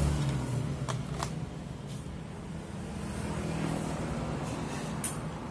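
Bosch cordless drill being test-run after a trigger replacement. Its motor hum dies away just after the start and comes back fainter later, with several sharp clicks in between.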